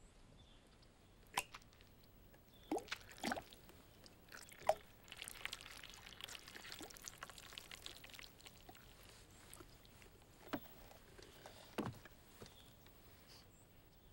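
Milk poured from a cardboard carton into a tall glass, running for about four seconds starting about five seconds in. A few sharp clicks and taps come before the pour and two more after it.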